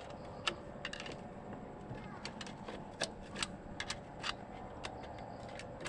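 Irregular light metallic clicks and taps of tools and old bearing parts being handled while extracting a broken transmission bearing, over a faint steady hum.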